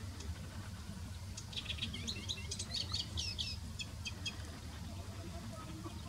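Moustached warbler singing one fast song phrase of about three seconds, starting about a second and a half in: a rapid run of high notes and quick up-and-down slurs that ends in a few spaced notes. A steady low rumble runs underneath.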